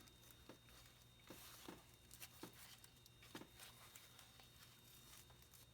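Near silence: room tone with a steady low hum and a few faint, scattered clicks and taps from light handling.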